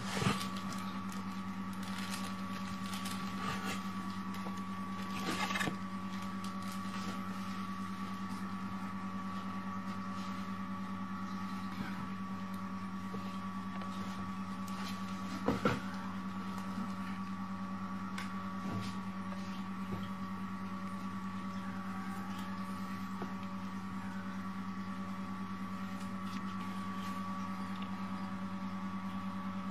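Steady electrical hum of a machine running in a room, with a few short light knocks, the loudest about halfway through.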